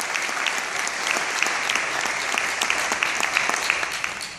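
Audience applauding, with sharp, close hand claps from people right by the microphone; the applause dies away near the end.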